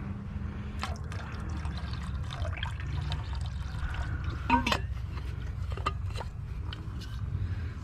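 Water poured into a camp cooking pot, trickling and splashing with a loud glug about halfway through, over a steady low rumble: more water going in for the stuffing mix.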